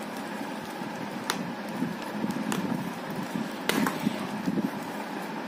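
Padded inner liner being pressed into the fixing points inside a full-face helmet shell: a few sharp clicks, the loudest a little past the middle, with fabric and padding rustling as the hands work.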